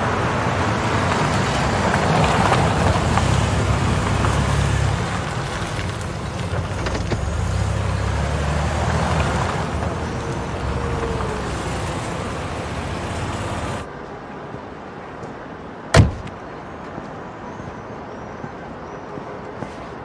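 Car passing through a courtyard, a steady engine and tyre rumble, which cuts off suddenly about two-thirds of the way through to quieter outdoor background noise. About two seconds later there is a single loud, sharp knock.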